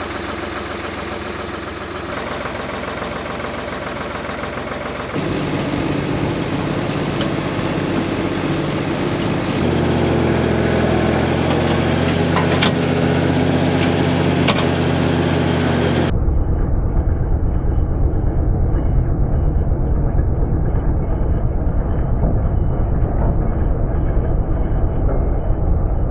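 Tractor engine running steadily, heard in several clips joined by abrupt cuts. A few sharp clicks come near the middle, and the last ten seconds are duller, with a heavy low rumble.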